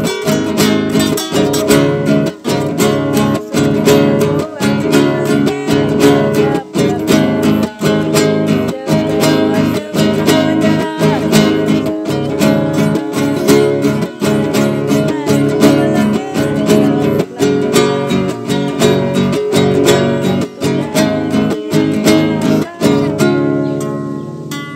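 Two acoustic guitars playing an instrumental together: a steady strummed rhythm with picked notes over it. Near the end the strumming stops and the last chord rings out and fades.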